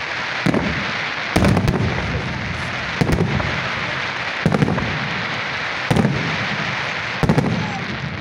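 Aerial fireworks shells bursting in a display: about six sharp bangs, roughly one every one and a half seconds. A continuous crackling hiss fills the gaps between them.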